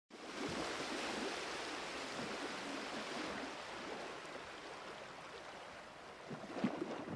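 A steady rushing noise that starts abruptly and slowly fades, with a few faint knocks near the end.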